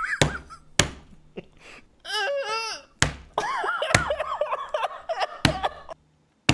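A man laughing hysterically in high-pitched bouts, with several sharp knocks among them.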